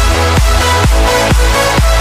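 Electronic dance music: a deep kick drum beating a little over twice a second under sustained synth chords.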